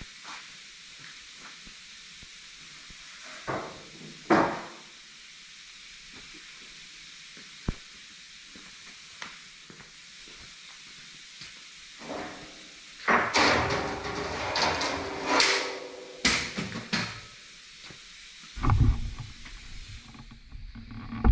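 Metal parts and a wheeled shop cart being handled: a few separate knocks, then a louder stretch of clattering about two-thirds of the way through, and low rumbling near the end.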